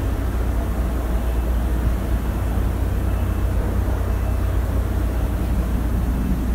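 Steady low drone of a diesel-hauled passenger train heard inside a coach, with a constant deep hum under a noisy hiss.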